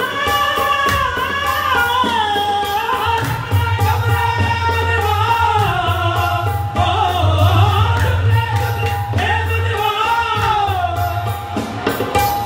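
Live qawwali: a voice sings long, wavering, ornamented lines over harmonium, with percussion beating a steady rhythm underneath.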